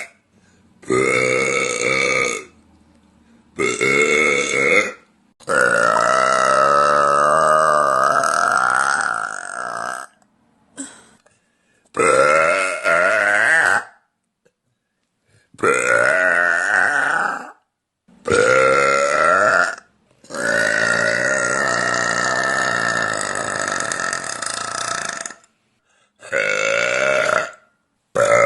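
A woman burping loudly, one burp after another with short silent gaps: about nine in all, most lasting one to two seconds and two drawn out for four to five seconds, their pitch wobbling through the long ones.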